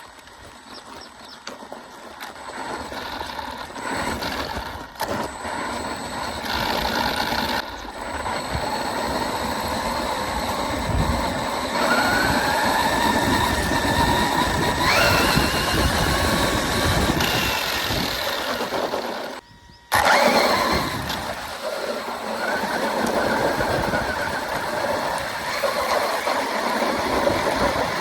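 Hosim X07W RC car's brushless electric motor whining under throttle, its pitch rising as it speeds up, over a noisy rumble. The sound cuts out abruptly for a moment about two-thirds of the way through, then resumes.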